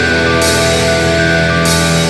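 Heavy, progressive-metal style music: dense sustained chords held over a steady low bass note.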